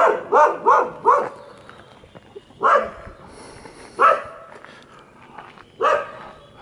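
Dog barking: four quick barks in the first second, then three single barks spaced about a second and a half apart.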